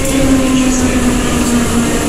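Moscow metro 81-717.5 car slowing into a station, heard from inside the car: a steady rumbling hum with a tone that slowly falls in pitch as the train decelerates.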